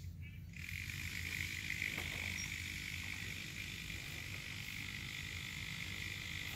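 A frog trilling: one long, steady, high-pitched trill that starts suddenly about half a second in and carries on unbroken. A faint low rumble runs underneath.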